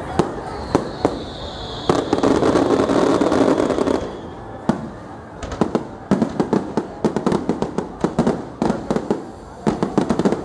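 Aerial fireworks going off. A faint high whistle falls slowly in pitch over the first few seconds, a loud steady rush lasts about two seconds, and then comes a long run of rapid crackling bangs, many to the second.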